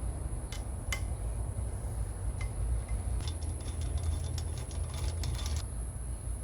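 Light mechanical clicks from bicycle components being worked on: a few single clicks, then a rapid, irregular run of ticks for about two seconds, over a steady hum.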